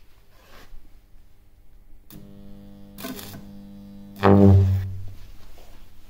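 Microwave oven transformer resonant circuit with a five-capacitor bank switching on with a deep mains buzz, a brief crackle of high-voltage arc about a second later, then a loud buzzing arc for under a second that dies away.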